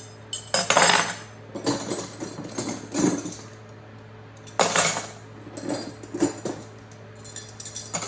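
Metal hand tools, wrenches and sockets, clinking and rattling against each other as they are handled, in about six separate bursts of clatter.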